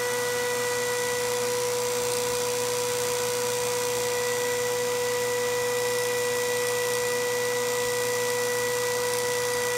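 Microwave oven AC fan motor running off a high-voltage hairpin circuit, with a steady high-pitched electrical whine over a constant hiss.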